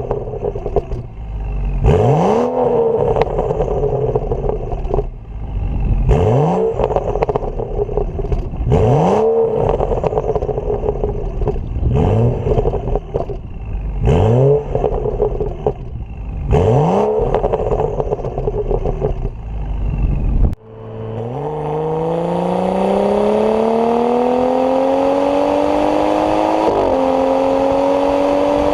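BMW N55 turbocharged straight-six with a catless downpipe, revved in about eight quick blips roughly every two and a half seconds, each rising and falling in pitch. About two-thirds in it gives way to a steady engine note under acceleration, climbing in pitch, with a hiss on top and brief dips near the end like gear shifts.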